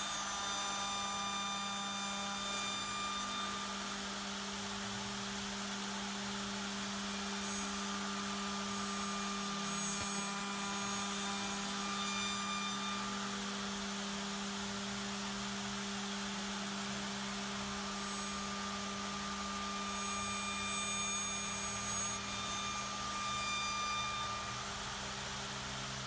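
SMT4X4-3500 four-spindle CNC mortise-and-tenon milling machine running, a spindle's disc cutter milling a wooden board. A steady hum underneath, with high whining tones that come and go several times.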